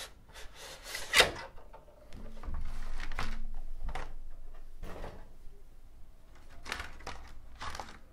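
Unboxing a plastic laptop hard-shell case: plastic and packaging rustling and scraping against each other, with several sharp clicks and knocks as the case shells are handled.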